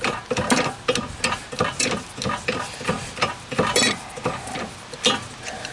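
Socket wrench on a rusted, penetrating-oil-soaked brake caliper bracket bolt being worked back and forth, a run of irregular clicks and scrapes several times a second as the oil is worked into the seized threads.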